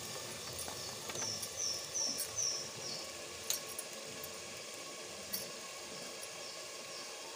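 Spiced onion-and-tomato masala sizzling quietly in an aluminium pressure cooker, with a few light clinks of a steel spoon against the pot. A short run of four high chirps comes about a second in.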